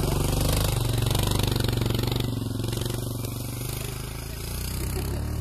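A vehicle engine running steadily with a fast, even pulse.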